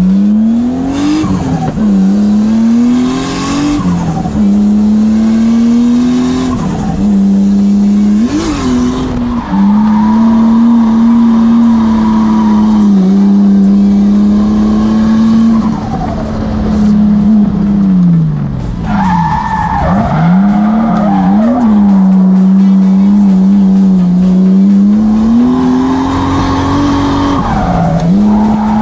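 Nissan 180SX drift car heard from inside the cabin. The engine is held at high, near-steady revs that drop and flare back up several times through the corners, and the tyres squeal as the car slides.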